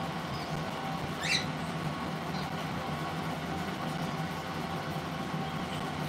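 A parrot gives one short, rising squeak about a second in, followed by a couple of faint high chirps, over a steady low hum.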